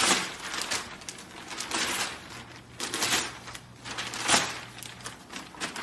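Newspaper pages rustling and crinkling in a string of irregular bursts as a golden retriever grabs and tugs at them with its mouth.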